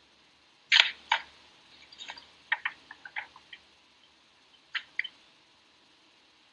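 A series of irregular clicks and taps: two loud ones about a second in, a cluster of lighter ones over the next few seconds, then two more near the five-second mark.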